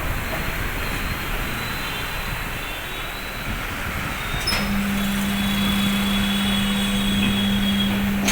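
Steady vehicle and road noise, with a low steady hum that starts about halfway through and cuts off at the end.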